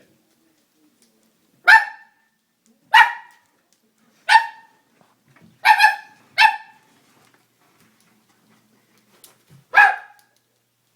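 A dog barking six times in short, sharp single barks, the first five spaced about a second apart and the last after a pause of about three seconds.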